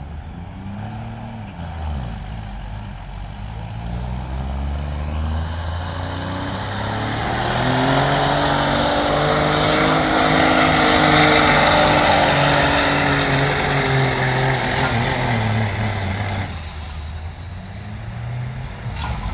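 Semi truck's diesel engine at full throttle pulling the weight sled: the engine note climbs over the first few seconds and holds, with a high whistle over it, until the throttle is cut about three-quarters of the way through.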